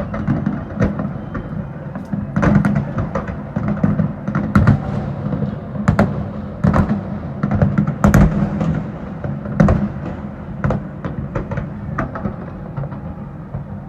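Aerial fireworks shells bursting in a dense, irregular barrage of bangs, several a second at times, over a continuous rumble.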